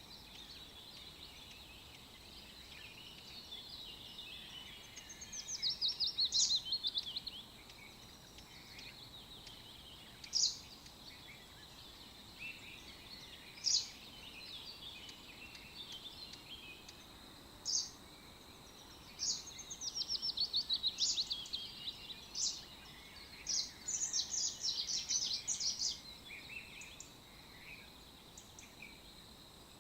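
Songbirds calling: single sharp chirps and several bursts of rapid trills, over a faint steady high tone.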